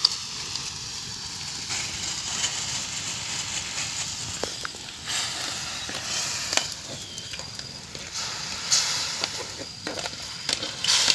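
Crab and squid cooking in a wok over an open wood fire: a steady hiss with scattered crackles and pops, and scrapes and clinks of a metal strainer-ladle against the wok as it is stirred.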